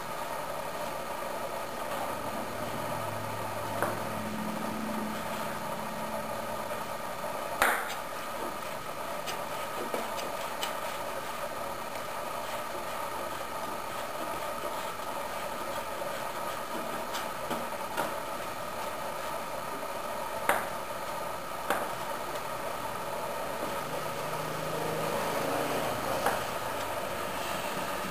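Kitchen knife slicing a beef sausage on a plastic cutting board, the blade knocking sharply on the board now and then, about seven times, over a steady background hum.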